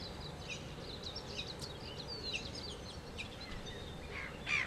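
Small birds chirping and warbling repeatedly over steady low background noise, with a louder short sweep near the end.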